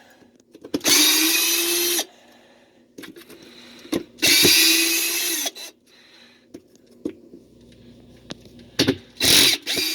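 A cordless power drill-driver spinning in three short runs of a second or so each, backing out the Phillips screws that hold the washer's drive hub.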